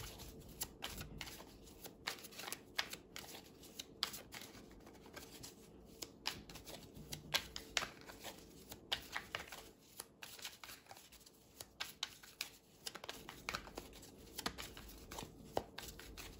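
A deck of tarot cards shuffled by hand: a long run of faint, irregular flicks and taps as the cards slide and knock against each other.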